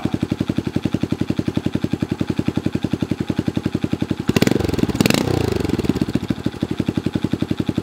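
2015 Honda Grom's 125cc single-cylinder four-stroke engine, with an aftermarket exhaust, idling with an even rapid pulse. It is given a couple of throttle blips about halfway through, then settles back to idle. It now holds a steady idle after its nearly closed spark plug gap was opened to about 32 thousandths.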